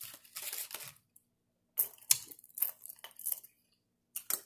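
Close-miked chewing of crunchy tortilla-chip nachos: irregular crisp crunches in bunches, followed by a few sharp clicks of a metal fork against the plate near the end.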